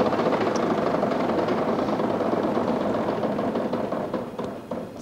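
Large game-show prize wheel spinning, its pointer flapper clicking rapidly against the pegs on the rim. The clicks slow, thin out and fade near the end as the wheel comes to rest.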